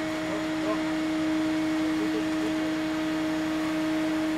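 Turntable ladder's engine and hydraulic drive running, a steady hum that holds one even pitch.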